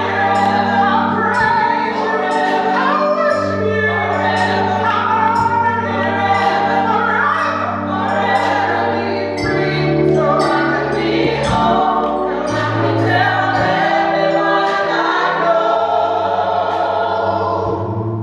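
Gospel choir singing over instrumental backing, with sustained bass notes and a steady beat.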